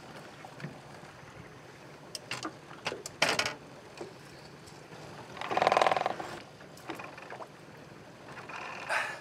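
Handling noises as a caught sea bass is unhooked from a lure on a boat: scattered clicks and knocks, and a short, louder rattling flurry about halfway through, with a smaller one near the end.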